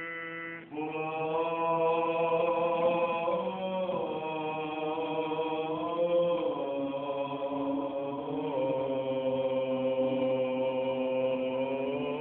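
Orthodox liturgical chant: a voice singing long held notes that move slowly from pitch to pitch, with a brief break between phrases under a second in, over a steady lower sustained note.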